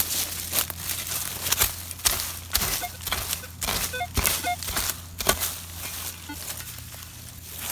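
Dry leaf litter and soil being scraped aside and dug into by hand at a metal-detector target: irregular crunching scrapes and short strikes, several to a second.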